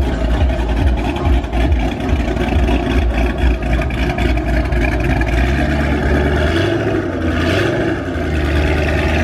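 Cammed Ford Mustang GT 4.6-litre three-valve V8 with Hot Rod Cams and a Corsa exhaust, idling with a lumpy, choppy lope. The chop turns steadier about halfway through.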